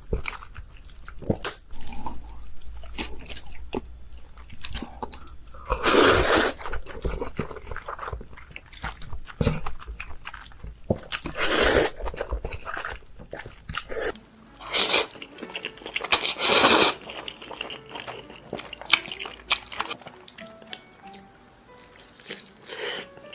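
Close-miked eating sounds: crunching bites and chewing of spicy cheese buldak noodles and fried chicken, with a run of small clicks and four loud, brief crunching bursts spread through.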